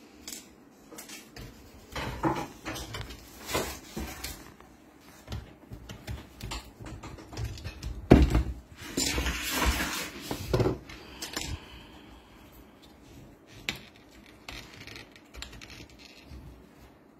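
Irregular clicks, knocks and scraping from the plastic housing of a Kyocera TASKalfa copier developer unit being handled and worked on by hand, with a louder spell of clatter and scraping about eight to eleven seconds in.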